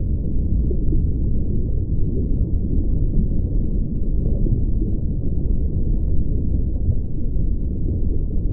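Loud, steady low rumbling noise with nothing higher-pitched in it.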